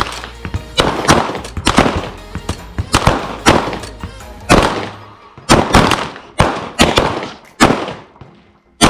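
Handgun shots from several shooters firing live rounds at once, a ragged string of overlapping cracks, each with a short echo, that thins out and stops near the end.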